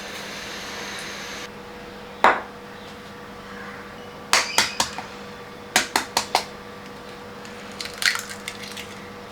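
Kitchen knife chopping on a wooden cutting board: a single knock, then short runs of three or four quick strokes. A steady hum stops about a second and a half in.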